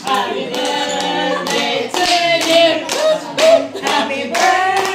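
A group of people singing together and clapping along in rhythm, about two claps a second.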